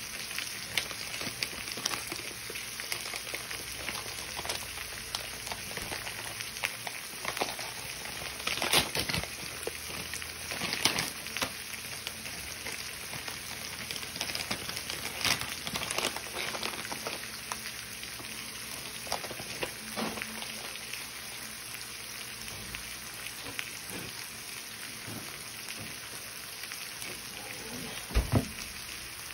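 Corn kernels frying in butter in a skillet: a steady sizzle with scattered crackling pops. A double knock sounds near the end.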